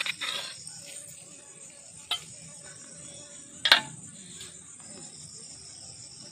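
Long metal spoon clinking and scraping against a steel pot and a small steel bowl while serving a dry fry: a few sharp clinks, the loudest about three and a half seconds in. A steady high insect buzz runs underneath.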